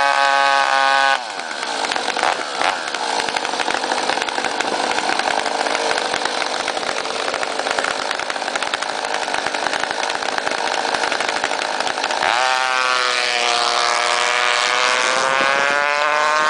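Small engine of a radio-controlled rail dragster running: a clear buzzing pitch turns rough and noisy about a second in, then a clear pitch comes back about twelve seconds in and climbs toward the end.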